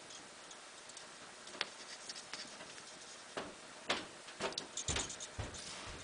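Irregular light clicks and taps from handling bus wire and tools on a solar panel being wired. A few isolated ticks come first, then a quicker cluster of taps with some dull knocks in the second half.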